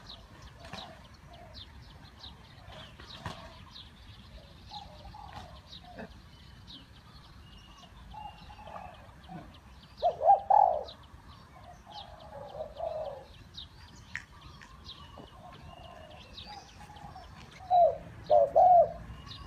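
Spotted dove cooing in short phrases, loudest about ten seconds in and again near the end, with small birds chirping high and thin throughout.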